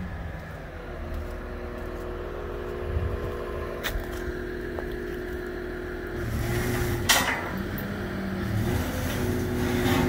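Heavy-equipment diesel engine idling steadily, its note shifting and growing a little about six seconds in. A faint click comes near four seconds in, and a short burst of noise about seven seconds in.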